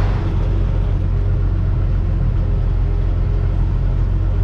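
Tractor engine running steadily under load, a deep even drone with no change in pitch.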